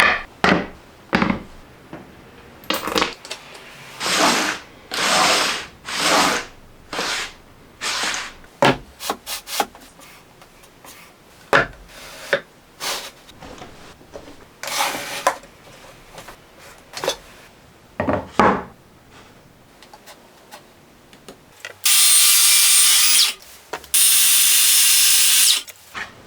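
Woodworking tools on wood: a long series of separate short scraping strokes, then a small power tool run twice for about a second and a half each, with a steady hum under its whine.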